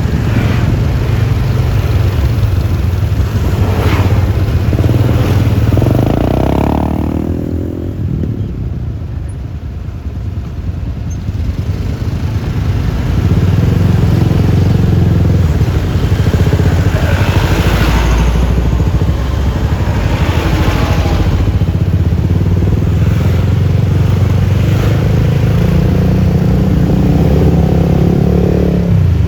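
Riding noise of a Yamaha Lexi LX 155 scooter's 155 cc single-cylinder engine on the road, with wind and tyre rumble. It eases off and grows quieter for a few seconds about a quarter of the way in, then picks up and runs steadily louder again.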